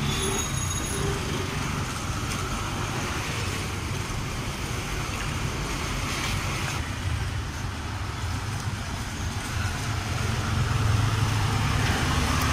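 Roadside traffic noise: a steady hum of passing motor vehicles, with a low engine rumble growing louder in the last couple of seconds.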